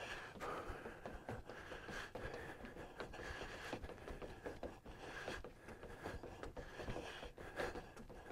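Faint, quick, irregular footsteps of sneakers on a wooden deck: light taps and scuffs as a person jogs in place and steps forward, to the side and back.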